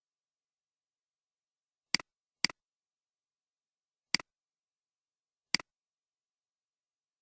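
Computer mouse button clicks, four in all: two about half a second apart, then single ones a little under two seconds and about three and a half seconds later. Each is a sharp click followed at once by a softer one, the press and release of the button.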